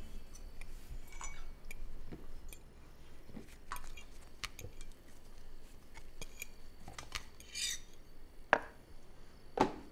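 Quiet dinner-table sounds: cutlery and dishes clinking and scraping, with two sharper clinks near the end.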